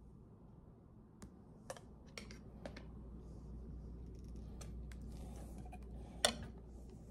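Faint, scattered small clicks and taps of hard plastic as an anime figure and its loose pieces are handled and fitted together, with one sharper click about six seconds in.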